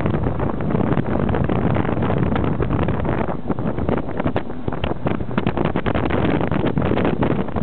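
Wind buffeting the microphone over the steady running and road noise of a moving vehicle, with rapid irregular flutter throughout.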